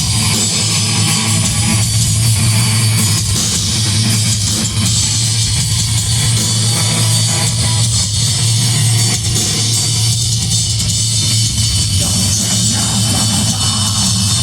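Live metal band playing loud and without a break: distorted electric guitars over a pounding drum kit.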